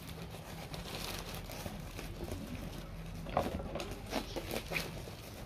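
Thin black plastic bag wrapping crinkling and rustling as it is pulled and torn off a cardboard box, with a few louder crackles in the second half.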